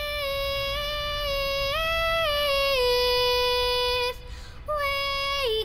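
A young girl's solo singing voice holding long, slow notes that step up and down in pitch, with a short break for breath about four seconds in.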